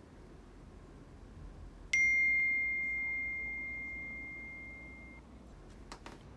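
A single bright ding from a phone's message notification chime, striking about two seconds in and ringing on as it fades away over about three seconds.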